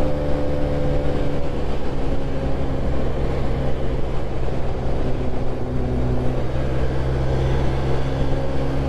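Motor scooter riding at a steady cruising speed: a steady engine hum under a rough, fluttering wind rush on the microphone.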